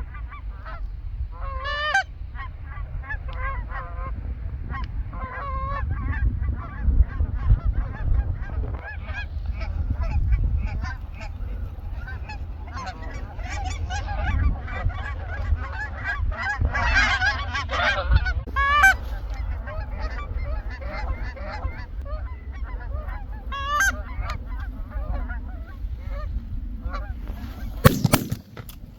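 A flock of Canada geese honking steadily, many overlapping calls. A single shotgun blast rings out about a second before the end.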